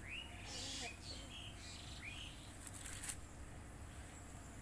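Birds chirping in short, curved notes about once a second, with two brief rustling swishes and a steady low rumble underneath.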